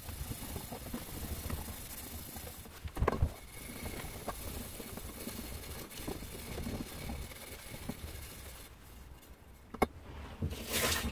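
A hand scrubbing an old, tarnished copper pipe clean along its length, a steady rubbing hiss. A couple of sharp knocks come about three seconds in and near the end, followed by a louder scrape.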